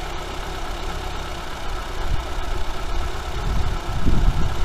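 Sens car engine idling steadily while it warms up after a rebuild for a connecting-rod bushing knock. It runs quietly, with no knocking. A low rumble swells about two seconds in and again near the end.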